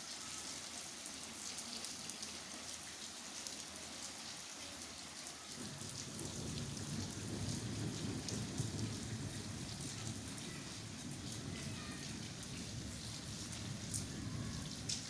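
Steady rain falling, an even hiss with scattered drop ticks. About six seconds in a low rumble joins it and carries on.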